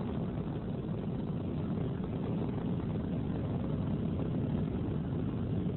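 Steady low rumble of a rocket in flight.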